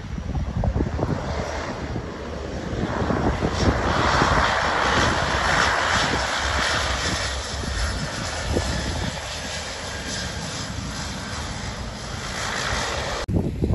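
de Havilland Canada DHC-6 Twin Otter's twin PT6A turboprop engines and propellers running as the aircraft rolls along the runway. The noise swells to its loudest about four to seven seconds in, then eases off, and cuts off abruptly near the end.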